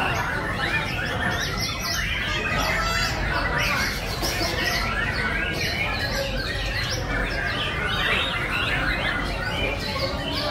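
Many songbirds singing at once, a dense chorus of overlapping chirps, whistles and warbles with no pause, over a steady low background noise.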